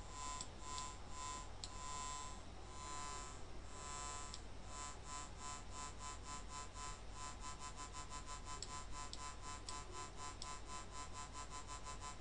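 Pure Data synth tone: a 145 Hz sawtooth from a phasor~ oscillator whose loudness is swept by a slow sine oscillator, so the buzzy tone pulses several times a second. The pulses slow down and speed up as the modulator's frequency is changed.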